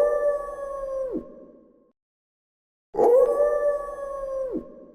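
Wolf howling twice with the same long, steady howl. Each howl holds one note and then drops sharply in pitch at the end. The first howl is already sounding and ends about a second in; the second starts about three seconds in.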